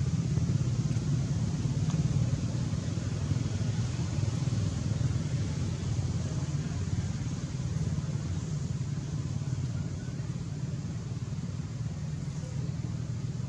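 Steady low rumble with a faint hiss over it, unchanging and without distinct events.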